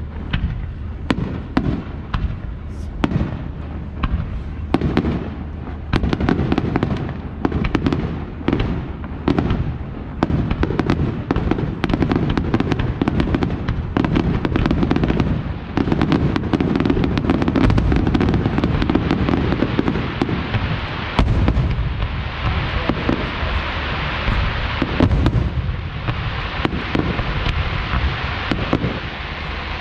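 Fireworks display going off in rapid succession: a dense run of sharp bangs over a rolling low rumble. A dense hiss joins in about two-thirds of the way through.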